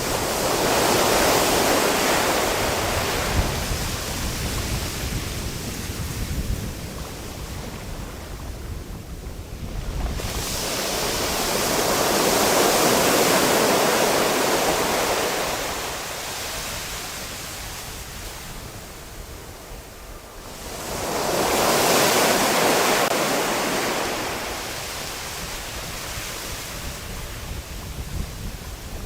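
Sea waves washing onto the shore, three surges of hiss about ten seconds apart, each swelling and then fading.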